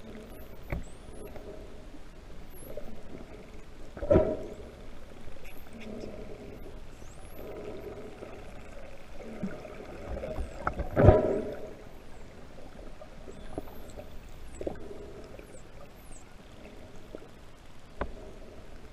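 Dolphins whistling underwater: many short, high whistles that rise and fall, over a steady wash of water. There are two loud gushes of bubbles and water, about four and eleven seconds in.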